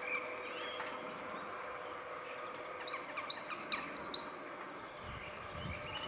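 Great tit singing: a quick run of about four two-note phrases, each a high note followed by a lower, down-hooked one, about halfway through.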